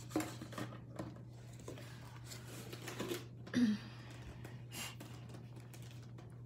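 Quiet room tone with a steady low hum, a scattered handful of light clicks and taps, and one brief hummed vocal sound, falling in pitch, about three and a half seconds in.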